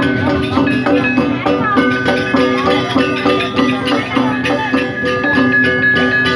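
Balinese gamelan music: metal percussion struck in fast, dense patterns over steady ringing tones.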